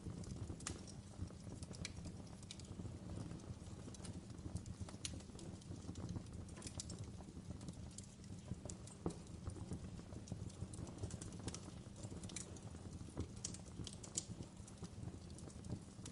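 Wood fire crackling in a fireplace: a steady low rumble of burning with scattered sharp pops and snaps at irregular moments.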